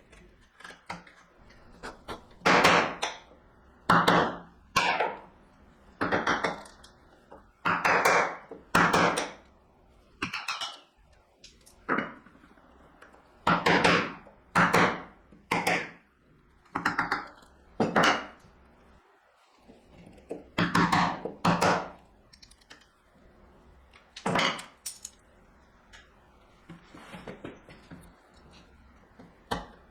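Chisel being driven into walnut to chop out the waste between the pins of a miter dovetail joint: about twenty sharp strikes at an irregular pace, often in quick pairs or threes.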